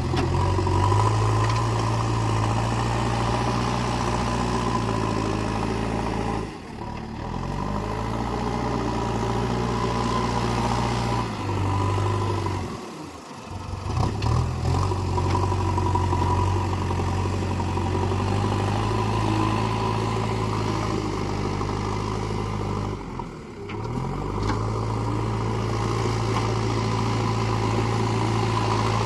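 JCB 3DX Eco Xcellence backhoe loader's diesel engine running steadily while working. It dips briefly and picks back up three times.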